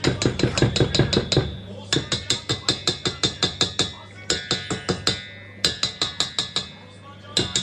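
Wire whisk beating against the sides of a stainless steel mixing bowl while mixing flour into cookie batter: rapid metallic taps, about seven a second, in runs of a second or two with short pauses between them.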